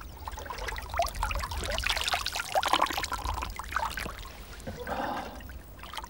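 Cupped hands scooping water from a shallow, fast-flowing river, with irregular splashing and water trickling back through the fingers.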